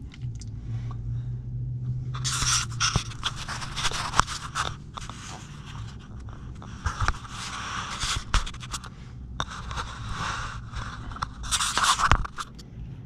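Takeout food containers and plastic utensils scraping and rustling, in a run of scratchy strokes and small clicks over a low steady hum.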